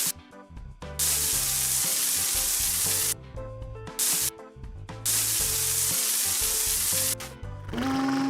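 Cartoon water-jet spray sound effect from a game's truck wash, a hiss of water in three bursts: two of about two seconds with a short one between. Light children's background music plays underneath.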